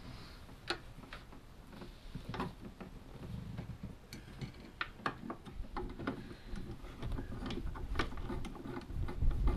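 Irregular small clicks and taps of gloved hands and tools on metal and plastic parts in a car's engine bay, growing busier about four seconds in, while a replacement clutch hydraulic cylinder is fitted.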